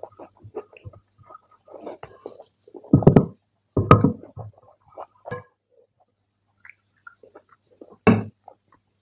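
Close-miked eating of rajma chawal by hand: wet squishing and clicks of fingers mixing rice on a glass plate, and chewing, with louder bursts about three and four seconds in. Near the end a sharper burst as a serving spoon scoops kidney beans from the ceramic bowl.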